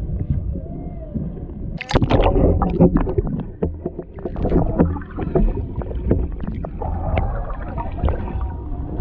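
Humpback whale song picked up underwater, slow moans that bend up and down in pitch. About two seconds in, loud crackling, sloshing water noise close to the microphone takes over for a few seconds, and the moaning calls come through again near the end.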